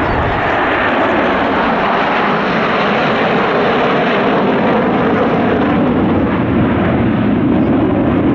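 Six Su-35S fighter jets flying over in close formation, their twin turbofan engines making a loud, steady jet noise.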